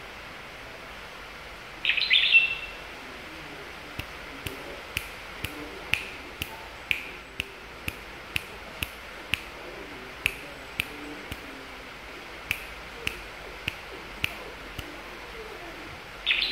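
Red-whiskered bulbul giving a short, bright song phrase about two seconds in and again at the end. In between comes a run of sharp clicks, about two a second.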